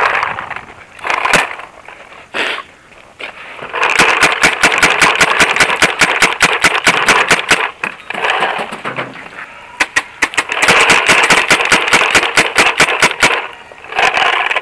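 Paintball marker firing: a few single shots, then two long rapid-fire strings of several shots a second.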